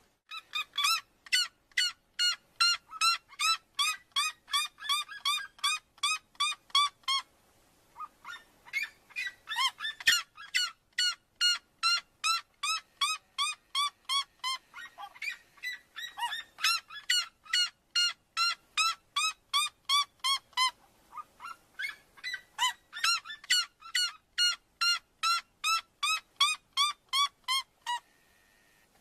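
Red-legged seriema calling: a long series of loud yelping notes at about four a second. The calls break off briefly about seven seconds in, then run on and stop near the end.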